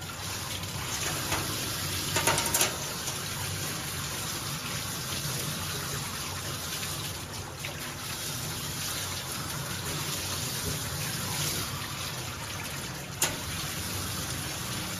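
Water running steadily from a tap or sprayer while a dog is rinsed in a bath, with short louder knocks or splashes about two seconds in and again near the end.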